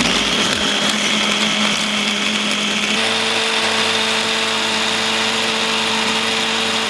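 Electric mini food chopper running, its blades grinding raw white fish fillets into paste: a loud, steady motor whine and hum that switches on abruptly and cuts off at the end. The motor's note changes slightly about three seconds in.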